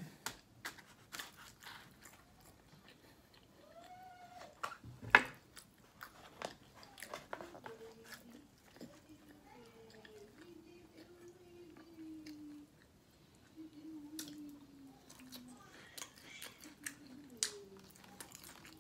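Close-up chewing and wet mouth clicks of someone eating cheese fries and a gyro, with one sharp click about five seconds in. A faint, wavering pitched sound runs through the middle.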